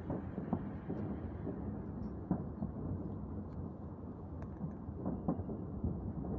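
Fireworks salute heard from a distance: a continuous rolling rumble of booms and echoes, broken by a number of short, sharp cracks.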